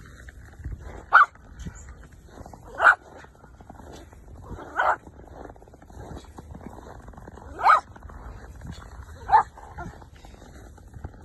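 A dog barking five times, single short barks at uneven gaps of about one and a half to three seconds.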